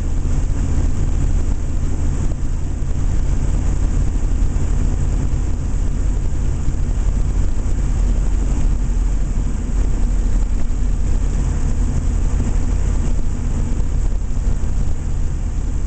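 Ford 7.3-litre turbo-diesel V8 running steadily while driving, a low engine drone with even road noise.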